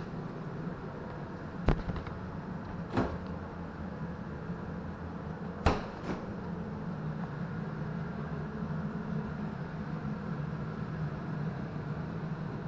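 Kitchen cabinet and refrigerator doors being handled: three sharp knocks, about two, three and six seconds in, the last the loudest, over a steady low hum.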